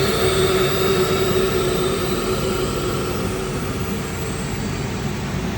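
AWEA LP-4025Z double column CNC machining center running under power: a steady mechanical whir with whining tones that die away about halfway through.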